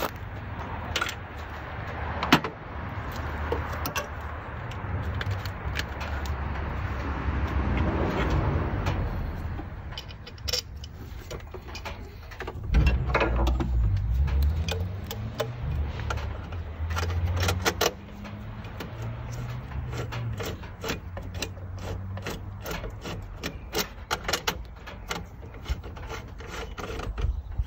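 Hand tools and metal fittings clicking, scraping and rattling as an ignition control box is unbolted and a replacement CDI box is fitted, over a low steady rumble. The short clicks come thickest in the second half.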